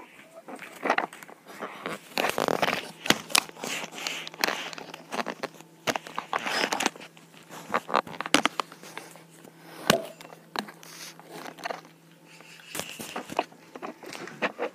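Irregular rustling, crackling and sharp clicks of a hand-held phone or tablet being carried and handled close to its microphone. A faint steady low hum runs underneath from about two seconds in until near the end.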